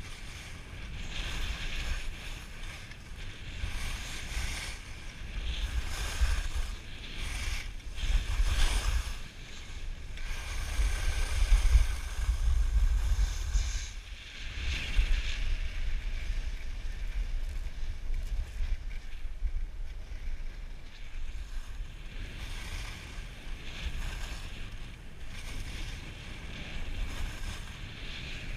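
Wind buffeting the microphone of a body-worn action camera during a fast ski descent, a low rumble that swells and eases, over the hiss and scrape of skis sliding on packed snow.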